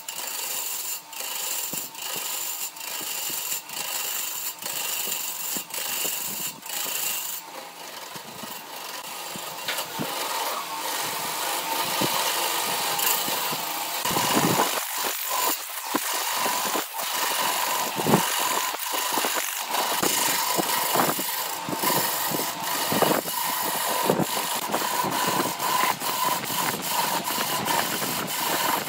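Wood lathe spinning a glued-up blank of bamboo chopsticks and epoxy resin while a hand-held turning tool cuts into it: a steady scraping cut, peppered with irregular sharp ticks, growing louder about halfway through.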